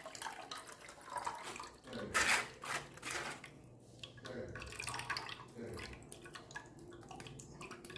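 Watery ground-herb rasam mixture being strained into a vessel, splashing and dripping in irregular spurts.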